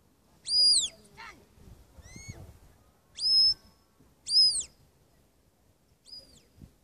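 A sheepdog handler's whistle commands steering the dog on the drive: five short, high whistle notes, most rising and then dropping at the end, with the loudest three near the start and in the middle.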